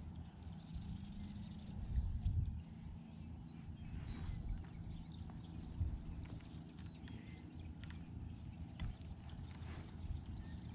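Quiet handling noise on a fishing kayak: a low rumble with scattered light knocks and clicks, a few a little louder about two and six seconds in.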